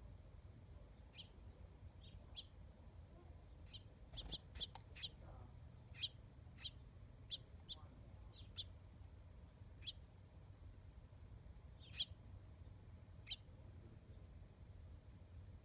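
Small birds chirping: short, high chirps at irregular intervals, with a quick run of several about four seconds in, over a faint low background rumble.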